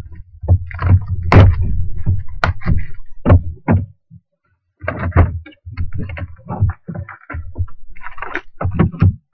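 A cardboard box of trading-card packs being handled and opened: a run of knocks, scrapes and crackles from the box and its packs, with a short pause about four seconds in.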